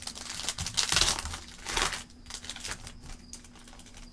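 Wrapper of a Panini Optic football card pack crinkling and tearing as the pack is opened, loudest in the first two seconds, then quieter clicks of the cards being handled.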